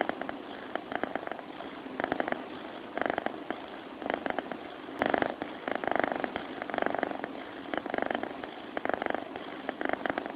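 A sleeping cat snoring with a rattling, purr-like sound, one breath about every second.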